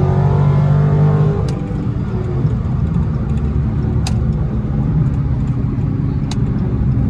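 Dodge Charger SRT's V8 engine and road noise heard from inside the cabin at highway speed. The engine note holds steady, then eases off about a second and a half in as the driver lifts off. A few faint sharp clicks are heard.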